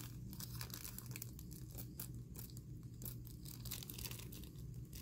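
Small clear plastic bag of plastic snap parts crinkling and rustling in the hands as pieces are picked out of it, a soft run of irregular crackles.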